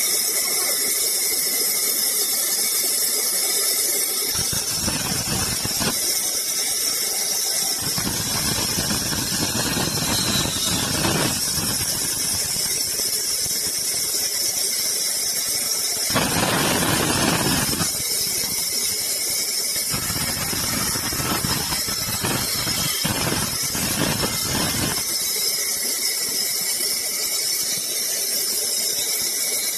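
Sawmill saw running steadily with a high-pitched hiss. It bites into wood in long stretches, adding a heavier, fuller sound from a few seconds in until a few seconds before the end.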